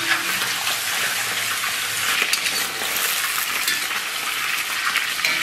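Blanched lamb rib pieces sizzling steadily in hot oil in a large wok, with a metal spatula scraping and clinking against the wok as they are stir-fried.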